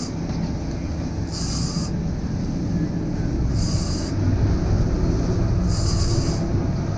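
Steady low rumble of a boat's engine and wind at sea, with a short high hiss about every two seconds.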